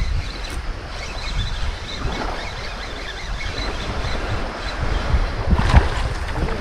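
Small waves washing in the shallows, with wind buffeting the microphone as a low rumble. There is a brief louder knock or splash near the end.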